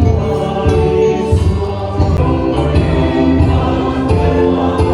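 Choir singing with accompaniment, in the manner of gospel or church music, with notes held and shifting from chord to chord.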